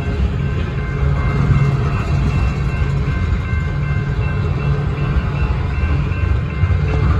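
Freight train cars rolling past a grade crossing: a steady low rumble of wheels on the rails, with the crossing signal's bell ringing as thin high tones above it.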